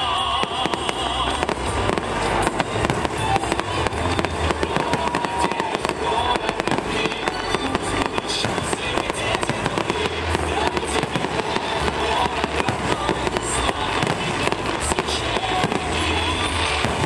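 Aerial firework shells bursting in a dense, continuous barrage: rapid bangs and crackling with no gap.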